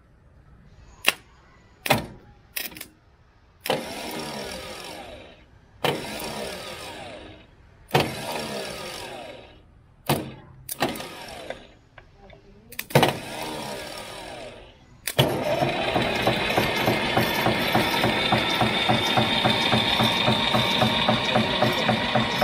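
1983 Escorts Ford tractor diesel engine being cold-started after 16 years standing. A few sharp clicks, then the starter cranks it in five short bursts. About fifteen seconds in, the engine catches and keeps running with a steady, even beat.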